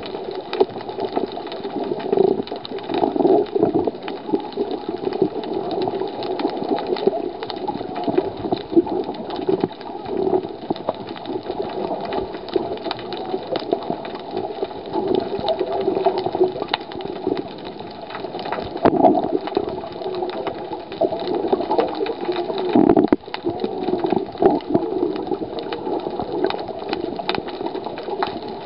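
Muffled underwater noise picked up by a camera under water: a steady wavering rush with scattered clicks and knocks.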